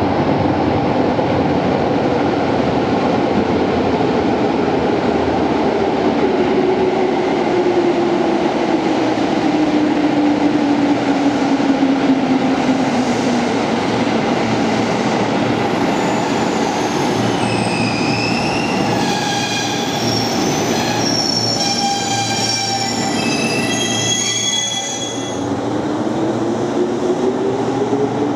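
JR East 205 series 3100 electric commuter train pulling into an underground station: a steady rumble with a drive whine that falls in pitch as it slows, then several high wheel and brake squeals as it comes to a stop. Near the end a whine rises in pitch as a train pulls away.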